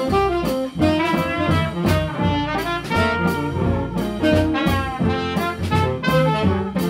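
Swing jazz band playing live: saxophone and trumpet playing together over piano, archtop guitar, upright bass and drum kit, with a steady beat.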